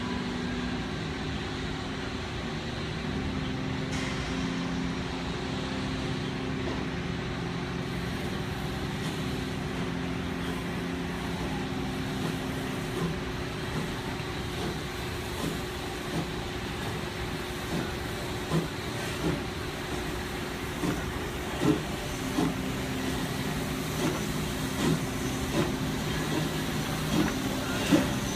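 Narrow-gauge steam locomotive Rio Grande Southern No. 41 approaching at low speed. Regular beats come about once a second and grow louder toward the end, over a steady low drone.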